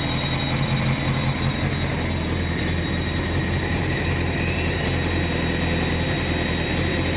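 Honda CBR929RR's inline-four engine idling hot, with a steady high-pitched whistle from the water pump over the engine sound; the whistle is the sign of a worn water pump, cured by replacing the pump's repair kit.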